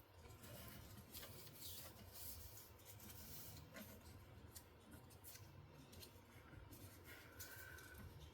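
Faint rustling and creasing of paper cardstock as it is folded by hand, with a few soft scattered ticks.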